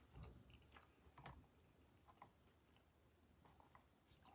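Near silence with a few faint, short clicks and mouth sounds of someone quietly chewing sushi.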